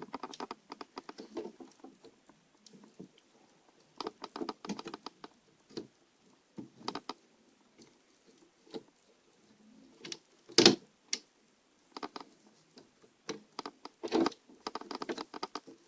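Small clicks and taps of plastic laptop parts being handled as the motherboard is pressed and worked down into the case, with one louder knock about ten and a half seconds in.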